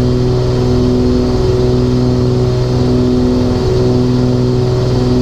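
The twin Cessna 414 Chancellor's two Continental 520 piston engines, 325 hp each, running steadily with a slow, regular pulsing in the drone about once a second.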